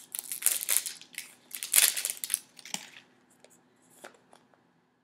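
Sticky tape being peeled off a plastic toy capsule: two long peels in the first two and a half seconds, then a few light plastic clicks.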